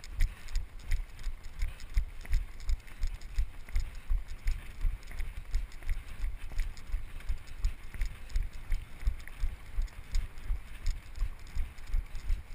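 Running footsteps jolting a body-worn GoPro camera: steady low thuds about three a second, matching the stride of a group jogging on a paved path, with faint scuffs of shoes.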